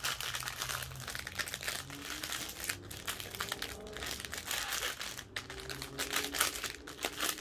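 Clear plastic bag of diamond painting drill packets crinkling as it is handled and turned over in the hands, a steady run of crackles.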